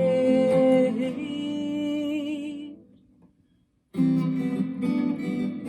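Acoustic guitar strumming under a voice holding sung notes with vibrato. Both fade out a little under three seconds in, leaving about a second of silence. Guitar strumming then starts again abruptly.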